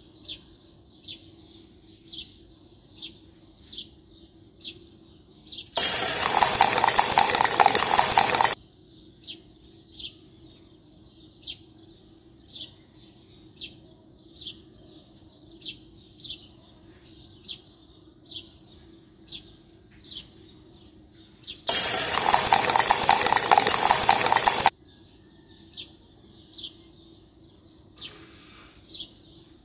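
A bird chirping at an even pace, a little under once a second, interrupted twice by loud bursts of harsh noise about three seconds long that start and stop abruptly.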